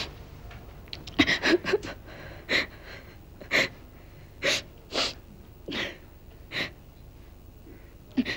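A girl crying: short, sharp sobbing breaths and sniffs. A quick cluster comes about a second in, then single ones follow roughly once a second.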